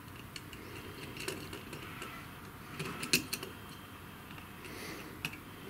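Scattered light clicks and taps of a wire being connected by hand to a CNC breakout board, the sharpest click about three seconds in.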